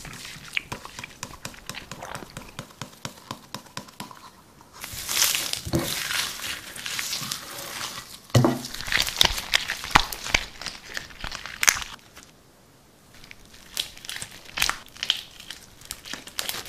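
Hand-kneaded white slime mixed with small white beads, crackling and crinkling in bursts as it is squeezed and pulled apart, with a quieter pause about twelve seconds in.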